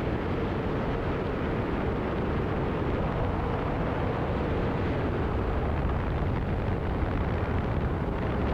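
Steady wind rumbling on the microphone, with a faint low hum running through it.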